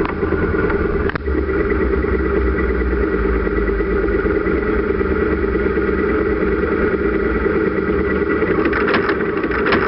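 Motorcycle engine idling steadily while the sidecar rig waits at a stop, with a single short click about a second in.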